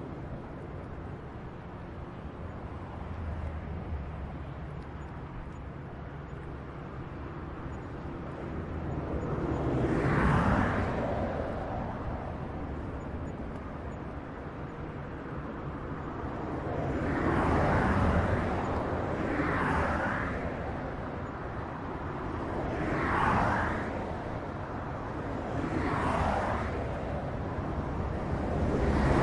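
Highway traffic: a steady rumble of tyres and engines, with single vehicles swelling past and fading, about six passes, the loudest near the middle and near the end.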